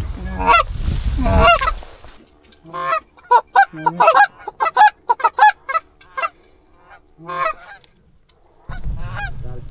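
Canada geese honking, a rapid series of short honks and clucks, with wind rumbling on the microphone during the first two seconds and again near the end.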